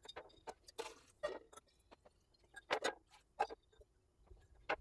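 Faint, scattered clinks, knocks and drips as a glass hummingbird feeder is rinsed over a kitchen sink, water dripping into a metal pot. The loudest knocks come a little under three seconds in and again near the end.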